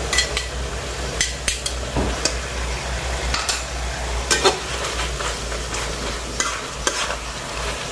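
Metal spatula scraping and clacking against a metal wok in irregular strokes while pork slices sizzle steadily as they stir-fry.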